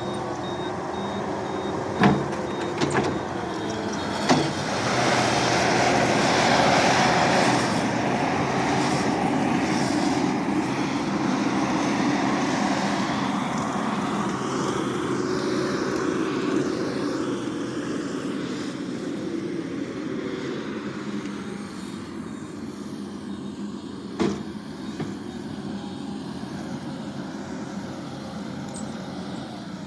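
Compact track loader (skid steer) engine running under load as it pushes dirt. It grows louder a few seconds in, then slowly fades, and a few sharp knocks sound briefly.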